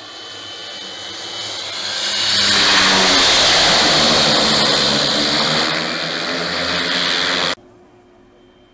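Pilatus PC-6 Turbo Porter's turboprop engine and propeller growing louder as the plane lands and rolls past close by, loudest from about three seconds in. The sound cuts off abruptly near the end, leaving a faint distant hum.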